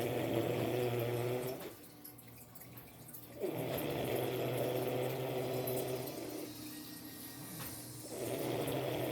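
Loud snoring: long snores repeating about every four and a half seconds, with quieter breaths between them. One snore ends near the start, a second fills the middle, and a third begins near the end.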